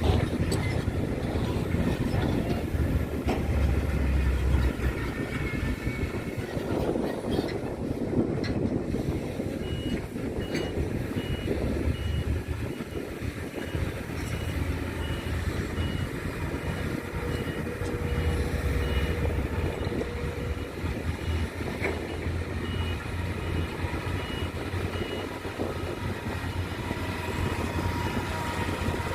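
Heavy vehicle's engine rumbling steadily. From about ten seconds in, a reversing alarm beeps at an even pace, a little more than once a second.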